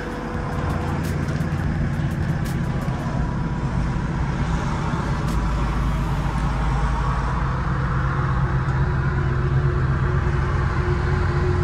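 Volvo ECR88D midi excavator's diesel engine idling steadily, with a few light clicks in the first few seconds.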